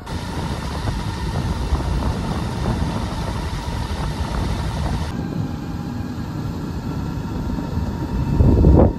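Sinclair C5's electric motor whirring steadily, running on about 13 volts from its lithium battery, a thin steady whine over the low rumble of the tyres rolling on a tarmac path. A louder low rumble swells briefly near the end.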